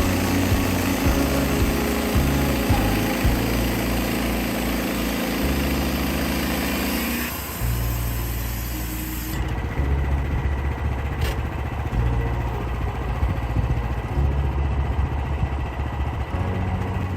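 An engine running, its low hum stepping up and down in pitch. The higher hiss drops away abruptly about seven seconds in and again a couple of seconds later.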